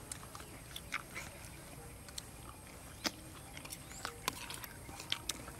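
Close-up eating sounds: chewing and mouth clicks as two people eat, with metal spoons scraping and tapping on plastic plates, heard as scattered sharp clicks.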